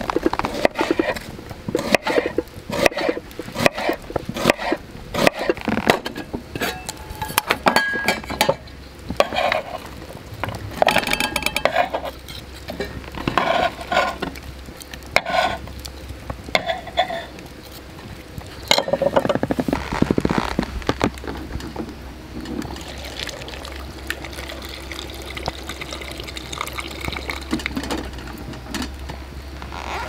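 Opinel folding knife slicing an onion on a wooden cutting board: a rapid run of sharp knocks of the blade on the board. Then come scattered clinks and scrapes as the slices are pushed into a metal mug, and a steadier rushing sound over the last several seconds.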